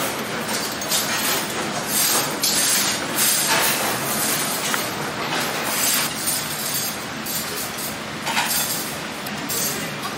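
Busy restaurant room noise: a steady rushing din with clinks of metal bowls and utensils against tableware.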